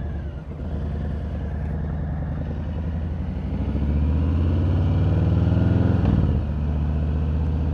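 Harley-Davidson Street Bob's V-twin engine pulling away under throttle, its pitch climbing steadily for several seconds. About six seconds in it dips as the bike shifts up, then runs on steadily at a lower pitch.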